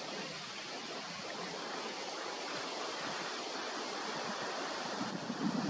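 Steady hiss of wind on the microphone, with a few short louder gusts near the end.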